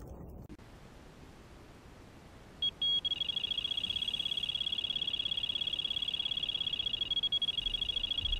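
Electronic carp bite alarm sounding a run: after a couple of single beeps about two and a half seconds in, it goes into a fast, unbroken stream of high beeps as a fish takes line.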